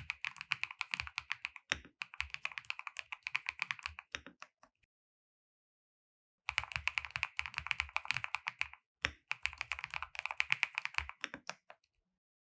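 Fast typing on a NuPhy Kick75 mechanical keyboard, a rapid stream of key clacks. It comes in two runs of about four to five seconds each, separated by a gap of total silence lasting nearly two seconds.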